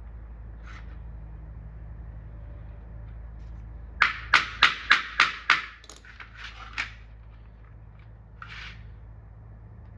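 A hammer tapping clip-on light bulb sockets down onto the wire so their contacts pierce it: a quick run of about six sharp taps, about three a second, then a few lighter ones. A low steady hum runs underneath.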